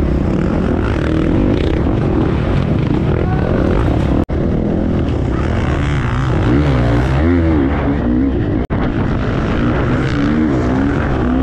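Off-road motorcycle engine running hard, its revs rising and falling again and again under throttle. The sound drops out for an instant twice.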